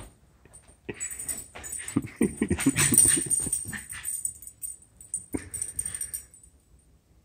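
A small dog making whining, grumbling play noises while roughhousing with a kitten. The noises come in a busy stretch from about one to four seconds in, then a shorter burst a little after five seconds.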